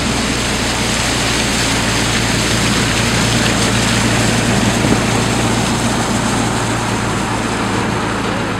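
A vehicle engine running steadily at an even pace, a low hum with a steady hiss of wind and water over it.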